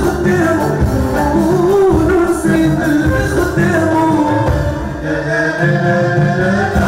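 Moroccan chaabi band playing: a violin bowed upright on the knee and an electric bass under a steady hand-drum beat, with singing.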